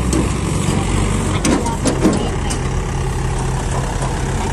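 Heavy diesel engine running steadily at low revs, with a few short sharp sounds about one and a half to two seconds in.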